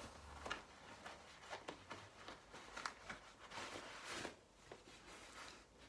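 Soft, intermittent rustling and swishing of the fabric straps of a Tula half buckle baby carrier as they are pulled and passed around while being tied off.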